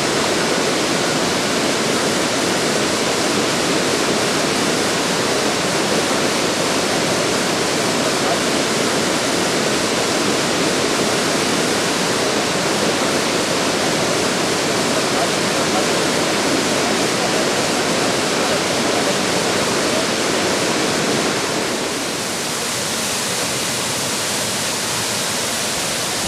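Steady rushing and splashing of water falling about 50 m down the Taru Falls, an artificial waterfall fed with released power-station water. About 22 seconds in, the sound turns a little quieter and hissier.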